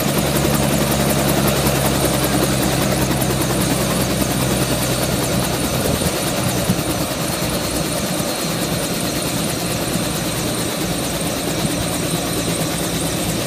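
Small helicopter running on the ground with its main rotor turning, a steady high whine over the rotor's beat. The low rotor tones fade a few seconds in and the sound eases slightly.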